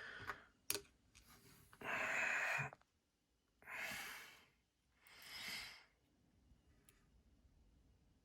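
A person breathing out heavily four times, each breath about a second long, with a sharp click just under a second in; faint small ticks follow in the last couple of seconds.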